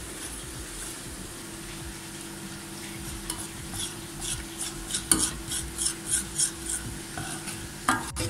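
A metal spoon stirring a cocoa-and-milk mixture in a stainless-steel saucepan, scraping against the pan; faint at first, then from about three seconds in a quick regular rhythm of about three strokes a second.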